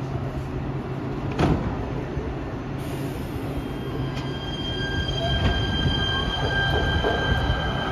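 LA Metro P3010 light rail train at the platform: a steady low hum, a sharp clunk about a second and a half in, then two steady high-pitched whining tones from about three seconds in.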